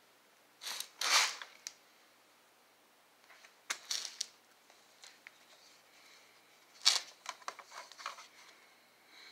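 Scraping and clicking noises from the phone being handled and moved around, in a few short bursts, the loudest about a second in and another near seven seconds.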